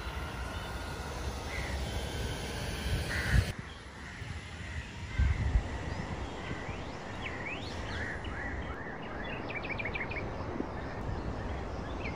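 Outdoor ambience: a steady background hiss with birds calling now and then, ending in a quick run of chirps about ten seconds in. Two soft low thumps come in the first half.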